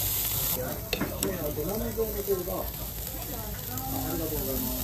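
Meat sizzling on a yakiniku grill, a steady hiss, with voices murmuring in the background.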